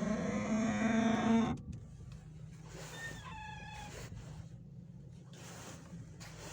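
A squeak from an Opel Astra H: a long, high pitched squeal that stops about a second and a half in, then a second, shorter squeak with a wavering pitch about three seconds in.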